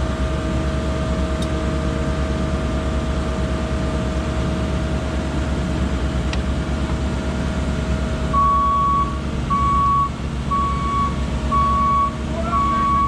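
Heavy diesel engine running steadily; from about eight seconds in a reversing alarm starts beeping, one steady-pitched beep about every second, as the delivery truck backs in to dump its load.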